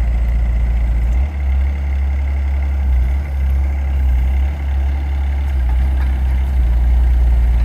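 Mini excavator's diesel engine running steadily while the operator works the boom and bucket, its deep note dipping briefly three times.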